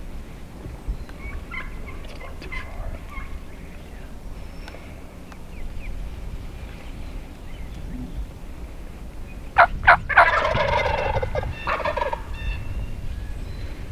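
Wild turkey gobblers gobbling: faint gobbles in the first few seconds, then about ten seconds in a loud, close gobble that opens with two sharp notes and rattles on for about two seconds.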